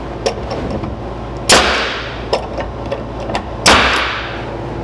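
Pneumatic staple gun firing twice, about two seconds apart, into OSB. Each shot is a sharp bang followed by a hiss of air, with a few faint handling clicks in between.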